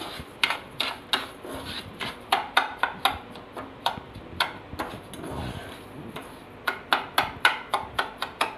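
Metal spoon stirring granulated sugar and ghee in a saucepan, clinking and scraping against the pan several times a second. The sugar is still dry and unmelted. There is a lull about halfway through.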